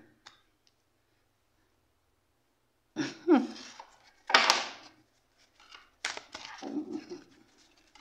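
Oracle cards being handled on a tabletop: a few short, sharp rustling and sliding strokes after about three seconds of near silence, with a brief murmur of voice among them.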